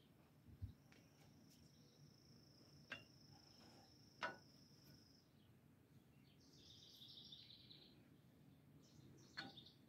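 Near silence: faint outdoor background with a thin, high, steady tone lasting about four seconds, a short buzzing call later on, and a few sharp clicks.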